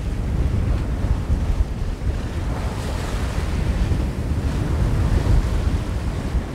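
Wind rumbling on the microphone over the rush of sea along a sailing yacht's hull as it beats to windward; the rush swells louder about three seconds in.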